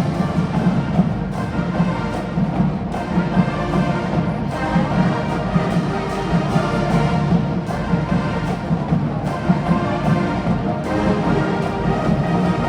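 Marching band music: brass playing sustained chords over drums.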